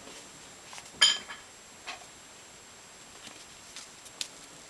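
A kitten's paws and claws tapping and scuffling on a hard floor as it pounces on a feather toy, with one sharp, ringing clink about a second in and a softer knock just after.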